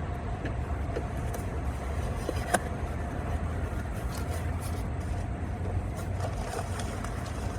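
Steady low mechanical hum with a faint steady tone above it, and one sharp click about two and a half seconds in.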